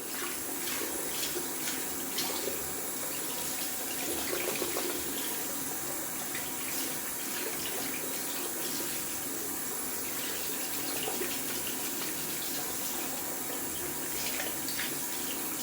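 Tap running steadily into a bathroom sink while a densely packed synthetic shaving brush is rinsed out under it, with a few small splashes.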